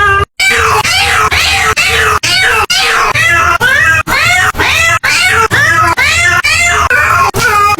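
Rapid string of cat meows, about two a second, each cut off sharply before the next, over a steady low rumble.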